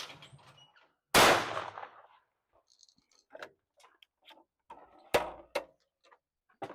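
Two shotgun shots about four seconds apart, each a sharp crack with a short ringing tail, the first the louder. Several faint clicks come between and after them.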